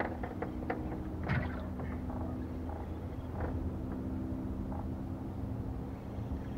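Steady low engine hum, with a few light clicks in the first second and a half.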